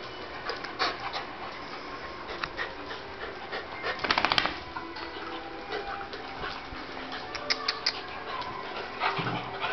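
Two dogs, a poodle and a brown dog, play-fighting on a tile floor: scattered clicks and scuffles, with a louder flurry of scuffling about four seconds in.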